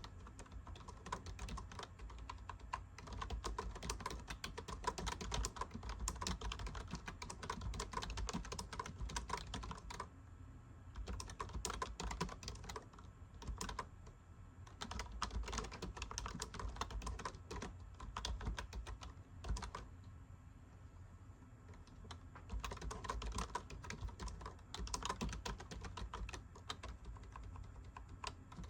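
Typing on a computer keyboard: fast runs of key clicks with short pauses between them.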